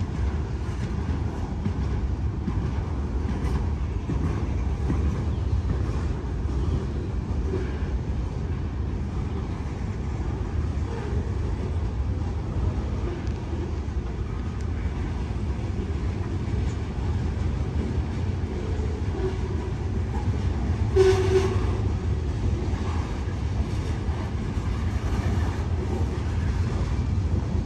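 Freight cars of a long CSX freight train rolling past: a steady low rumble of wheels on rail with clickety-clack. Near three-quarters of the way through there is a short, louder sharp sound.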